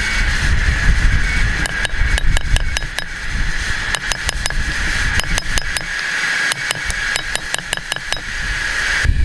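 A hand hammer striking hot steel in quick, steady blows, several a second: driving a hot square-shanked chisel into the round hardy hole of a railroad-track anvil to form it square. A steady hiss runs underneath.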